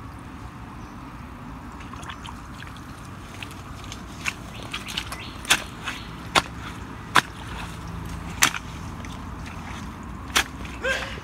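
Sharp snaps and clicks in mangrove mud, scattered a second or so apart and starting about four seconds in, over a steady low hiss.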